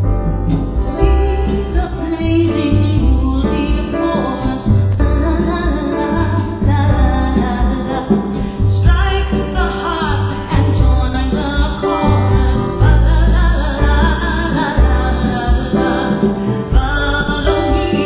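Music: a recorded track with a pulsing deep bass under a shifting melodic line.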